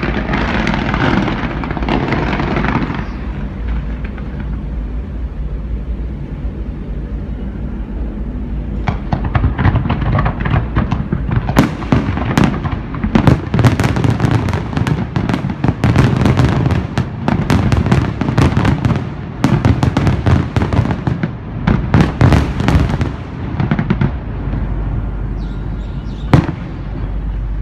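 Fireworks display: a dense rushing noise for the first few seconds, then from about nine seconds in a rapid barrage of shell bursts and crackles lasting about fifteen seconds, and one single loud bang near the end.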